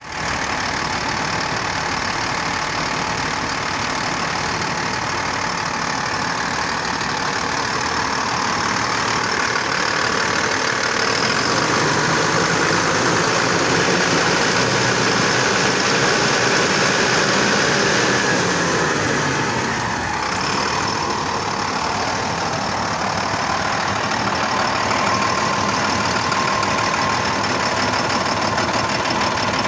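John Deere diesel generator set engine running steadily with its restored fuel injection pump. It grows a little louder in the middle and dips briefly about twenty seconds in.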